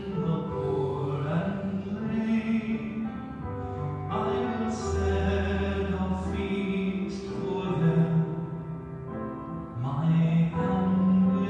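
A slow song, sung over instrumental accompaniment, with long held notes over a low bass line.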